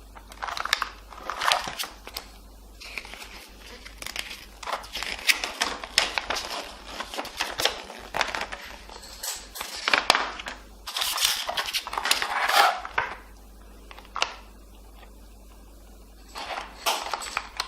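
Plastic packaging rustling and crinkling in irregular bursts, with small clicks, as a lavalier microphone and its cable are unpacked by hand.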